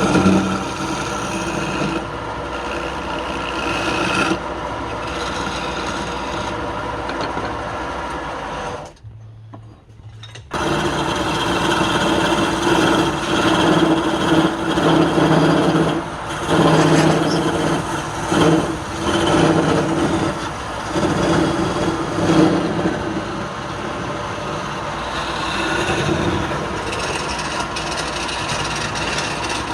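Wood lathe motor running while a tool works the spinning wood, a steady hum under scraping and rubbing. The sound cuts out briefly about nine seconds in, then resumes, rising and falling unevenly.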